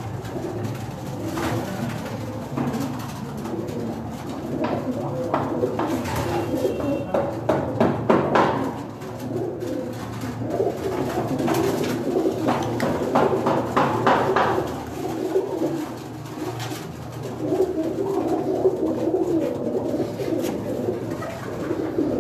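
A loft full of domestic pigeons cooing continuously, the sound close and boxy in a small enclosed room. Clusters of short clicks stand out around the middle.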